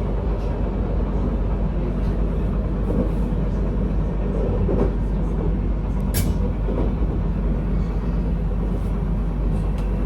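Passenger train running steadily on the rails, heard from inside the carriage as an even low rumble, with a brief sharp hiss about six seconds in.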